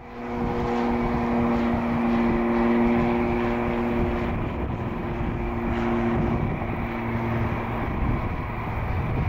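Airbus A319's twin jet engines running at low thrust while the airliner taxis on the runway: a steady rushing whine with a few low steady hums that fade away after about six or seven seconds.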